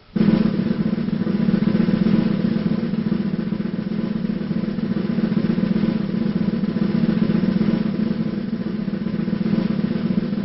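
Wrestling entrance theme music: a sustained snare drum roll that comes in abruptly and runs on steadily at an even loudness.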